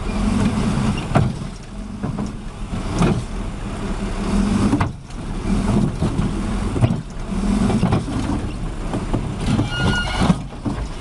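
A heavy vehicle's engine running, its sound swelling and easing every second or two, with a few sharp knocks.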